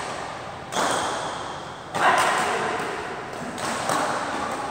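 Badminton rackets striking the shuttlecock during a rally: two sharp hits a little over a second apart, each echoing on in the large hall, and a lighter hit near the end.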